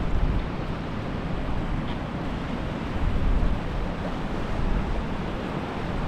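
Wind buffeting the microphone in gusts, strongest at the start and about halfway through, over a steady rush of wind and sea surf.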